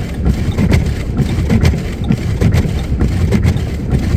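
Truck driving on a snow-covered road, heard inside the cabin: a steady low rumble with faint regular ticks about twice a second.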